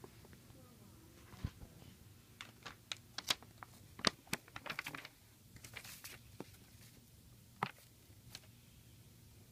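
Handling noise: scattered light clicks and rustles, thickest in the middle, then one sharper click near the end.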